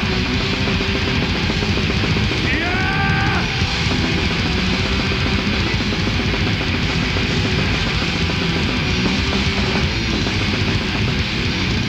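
Black metal band playing live: distorted electric guitars and bass over dense, fast drumming with cymbals. A short pitched squeal cuts through about three seconds in.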